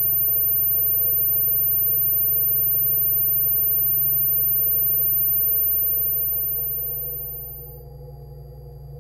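Ambient electronic drone music: layered sustained low tones under a piercing steady high sine tone, which fades out near the end while the low drone carries on.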